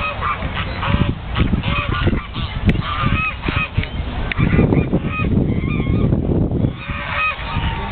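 A flock of birds calling over and over in short honking calls. A stretch of low rumbling noise runs through the middle.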